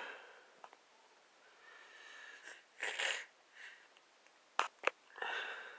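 A person breathing and sniffing close to the microphone in short hissy bursts, with two sharp clicks about four and a half seconds in.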